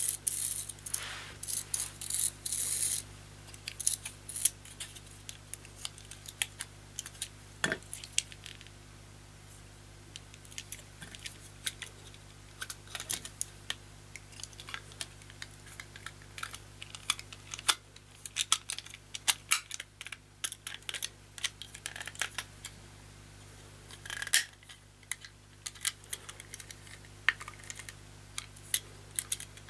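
Irregular small clicks and taps of a toy car's body shell being handled and pressed onto its chassis by hand, with denser clusters of clicks near the start and again about two thirds of the way through.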